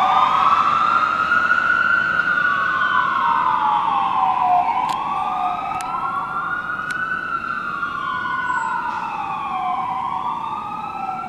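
Fire engine siren wailing in slow rising and falling sweeps, with a second wail overlapping out of step at times. It grows gradually fainter as the engine drives away.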